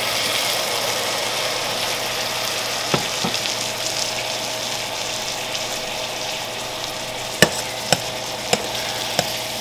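Sherry hitting a hot stainless-steel pot of sautéed mushrooms and onions, setting off a steady sizzle as it cooks down. A spoon stirs the mix, with a few sharp clicks against the pot, four of them close together near the end.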